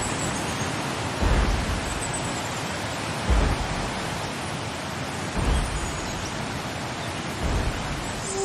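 Four deep, heavy thuds about two seconds apart, like the slow footsteps of a large dinosaur sound effect, over a steady hiss like heavy rain.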